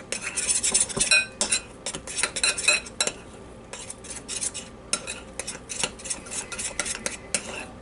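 A metal spoon stirring thick glue and shaving cream slime mix in a glass bowl, with quick, irregular clinks and scrapes against the glass and a short lull about halfway.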